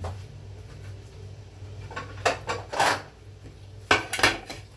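A ceramic plate and utensils clattering and scraping on a kitchen counter: a few sharp knocks and scrapes about two seconds in and another cluster near the end, over a low steady hum.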